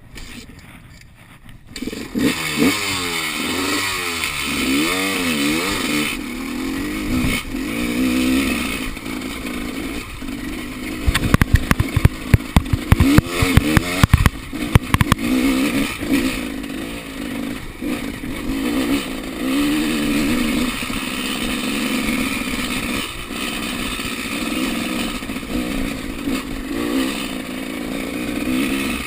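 Enduro motorcycle engine running under riding load, its pitch rising and falling as the throttle opens and closes. About a third of the way through comes a cluster of sharp knocks and clatters.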